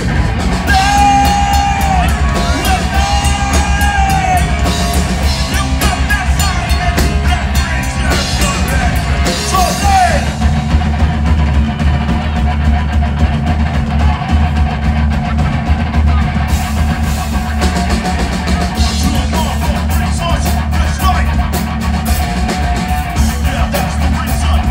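Live rock band playing loudly: distorted electric guitar, bass guitar and drum kit, with a heavy, booming low end.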